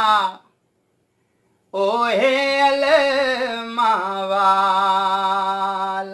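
A man singing a devotional qaseeda solo, with no instruments. A held note fades out just after the start. After about a second and a half of silence, a new phrase rises with wavering ornaments and settles into a long held note near the end.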